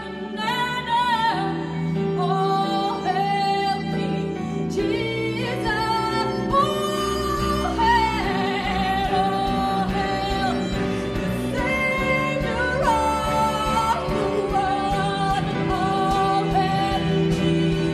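Live worship song: women's voices singing a slow, held melody over a band of keyboard, violin, electric bass and acoustic guitar. The low bass comes in fuller about five seconds in.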